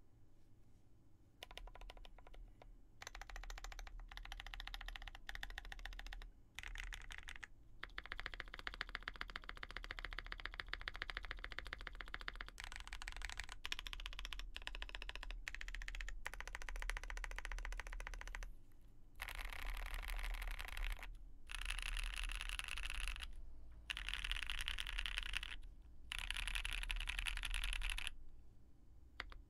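Mode65 aluminium mechanical keyboard with lubed Gazzew Boba U4T tactile switches and GMK keycaps being typed on fast. The keystrokes come in dense runs broken by short pauses.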